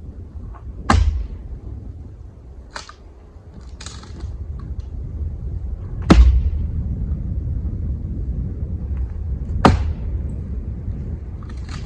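Heavy wooden knocks from firewood rounds being handled: three sharp, loud impacts a few seconds apart with lighter clunks between, over a steady low wind rumble.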